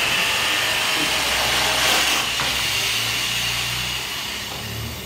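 A power tool running steadily off-screen, a high whine over a low hum, fading away over the last second.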